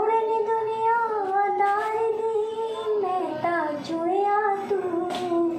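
A high voice singing a slow melody in long held notes.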